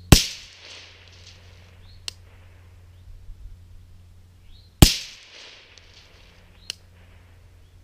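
Two shots from a suppressed AR-15 SPR (18-inch barrel, SilencerCo Omega suppressor, 55-grain .223 ammunition), about five seconds apart, each with a short echo trailing off. A faint sharp tick follows each shot about two seconds later.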